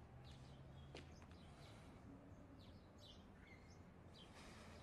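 Near silence: faint outdoor background with a few faint bird chirps.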